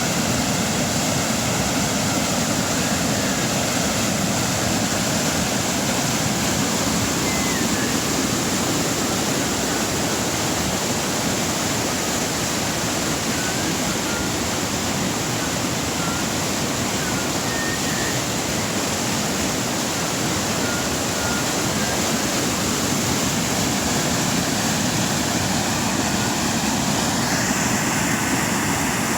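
A river gurgling and rushing steadily, an even wash of flowing water.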